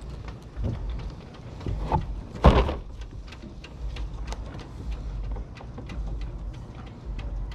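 Small knocks and water sounds around a plastic kayak held against a wooden dock, over a steady low rumble. One loud thump comes about two and a half seconds in.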